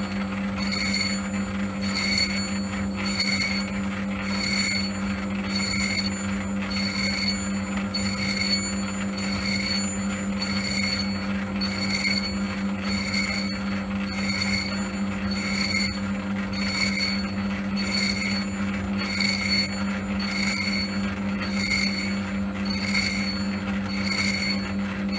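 Metal lathe running, turning a friction-clutch pulley while a single-point tool takes a light skim of a thou or two off its friction surface to clean up a high spot that made the clutch drag. A steady hum with a high hiss that pulses about once a second.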